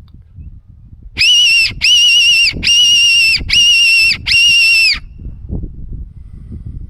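Silva fox call, a mouth-blown predator whistle, sounding five high, slightly wavering squeals in about four seconds in imitation of a rabbit in distress, to lure a fox or feral cat.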